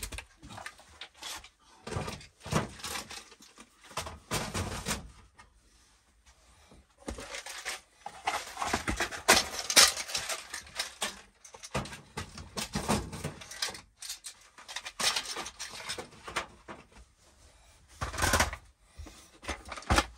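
Small plastic storage boxes being handled and slid back into a toolbox locker: irregular clatters, knocks and scraping rattles, busiest about halfway through.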